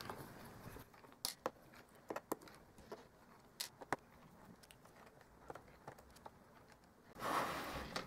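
Faint, scattered small clicks and ticks of a precision screwdriver backing out the bottom-cover screws of a white unibody MacBook, with a soft rustle near the end.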